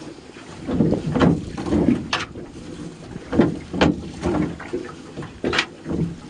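A gill net being hauled by hand over the side of a metal boat: irregular knocks and clatters against the hull, with rustling between them.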